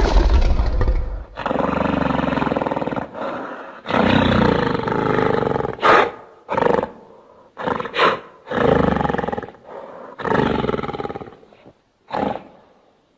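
Creature sound effects voicing a cartoon mountain gorilla, edited from film monster roars such as King Kong's and the Hulk's: about a dozen roars, growls and grunts in a row, some long, some short and sharp, with brief gaps between them.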